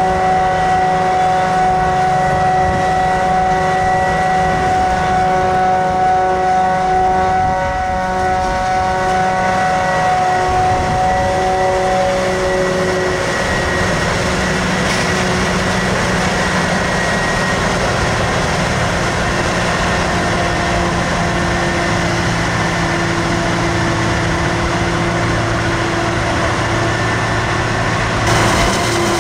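Heavy harvest machinery running steadily: a forage harvester and haulage tractors at work chopping maize, with a steady whine that fades out about twelve seconds in.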